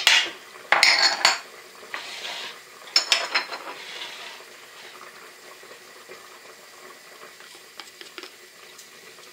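Spoons clinking and scraping against a stainless-steel cooking pot as spices are spooned in: sharp clinks at the start, around a second in and about three seconds in, with short scrapes between. After that it goes quieter, with a few faint light taps near the end.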